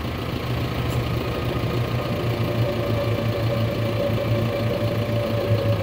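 John Deere 6430 diesel tractor running under load as its front loader raises a hung deer to pull the hide off. A steady engine drone strengthens just after the start, and a steady higher whine joins about two seconds in.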